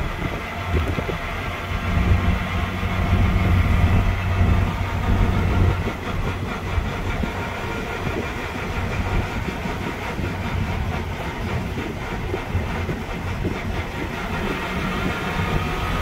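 DKW 3=6's two-stroke three-cylinder engine running while the car is driven, heard from inside the cabin along with road noise and body rattles. The engine hum is louder from about two to six seconds in, then settles to a steadier, quieter run.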